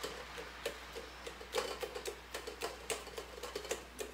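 A steel fork tapping and clicking against a steel plate while mashing roasted eggplant into pulp: quick irregular taps, several a second, each with a brief metallic ring.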